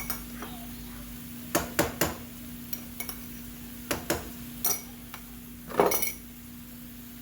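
A metal spoon knocking and clinking against a cooking pan and container in a string of sharp, irregular taps as sour cream is spooned into the pan, the loudest knock about six seconds in. A steady low hum runs underneath.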